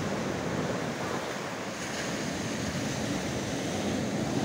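Sea surf washing over a rocky shore and into natural stone pools, growing a little louder toward the end, with wind buffeting the microphone.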